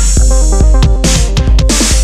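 Electronic dance music with heavy bass and a steady drum beat.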